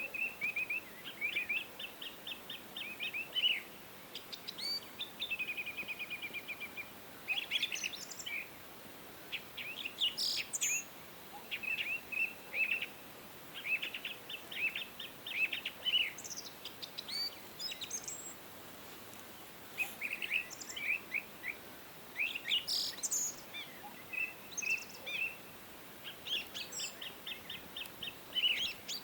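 Several songbirds singing and chirping in phrases, with fast trills of quick descending notes, over the steady hiss of flowing valley stream water.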